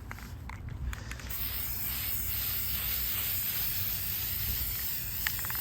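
Aerosol can of spray primer hissing in one long spray, starting about a second in and stopping just before the end.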